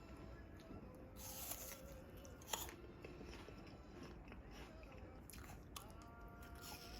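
Faint crunching and chewing of food, with a few soft, sharp clicks.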